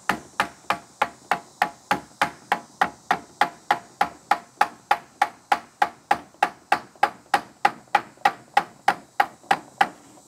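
Steel claw hammer striking a wooden block against the end of a fiberglass push-up mast section, a steady run of about three blows a second, driving a glued fitting onto the pole end.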